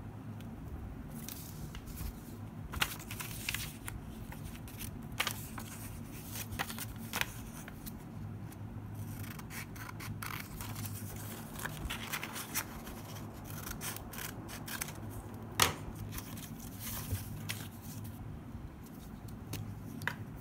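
Small scissors snipping through a thin manga page in irregular cuts, with paper rustling between snips.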